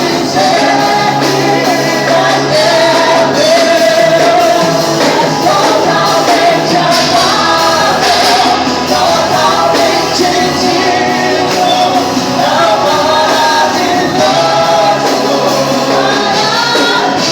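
Group of singers performing a worship song with band accompaniment.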